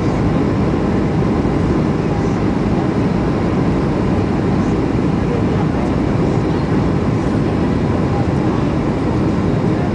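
Boeing 737-800 on final approach, heard inside the passenger cabin: a steady low roar of its CFM56 turbofan engines and rushing air.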